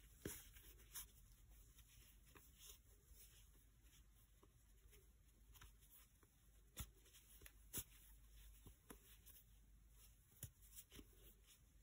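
Near silence with faint, scattered clicks and light scratching from a crochet hook working single crochets through t-shirt yarn.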